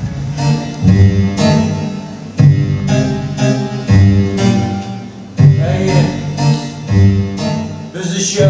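Music played on a piano-like keyboard: a run of chords, each struck sharply and left to ring over sustained bass notes, a new chord every second or so.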